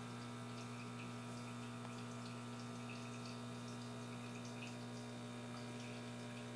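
Steady low hum of a reef aquarium's running pumps, with faint trickling and dripping of water.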